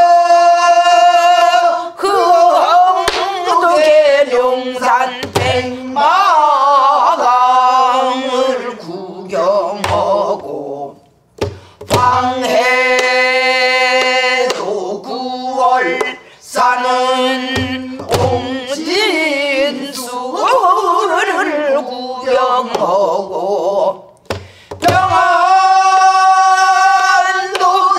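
A woman sings a Korean danga in pansori style, holding long notes with wide vibrato, and accompanies herself on a buk barrel drum. Occasional drum strokes fall between and under the phrases.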